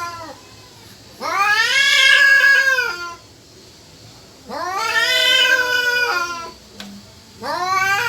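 Domestic cat caterwauling: long, drawn-out yowls of about two seconds each that rise and then fall in pitch, two in full and a third starting near the end.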